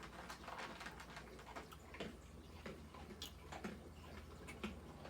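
Hands handling scarves: faint, irregular light clicks and soft rustles of fabric being moved and touched, several a second.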